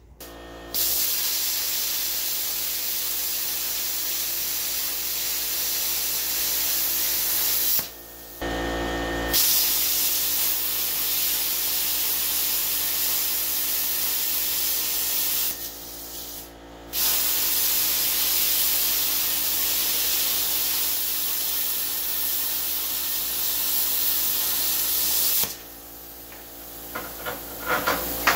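Hypertherm Powermax 45 XP air plasma cutter cutting rusty sheet steel: a loud, steady hiss of the plasma arc and air. It breaks off twice briefly between cuts and stops about three seconds before the end, followed by a few sharp ticks.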